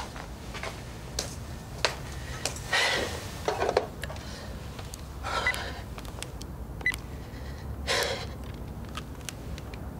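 Small household handling sounds in a kitchen: a scatter of light clicks and knocks, a few short rustling bursts, and a brief beep about seven seconds in as keys on a cordless phone are pressed.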